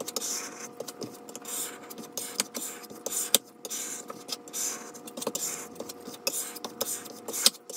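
Plastic squeegee scraping over vinyl on a glass cutting board in repeated short swishing strokes, with small clicks, smoothing the vinyl down. A faint steady hum lies underneath.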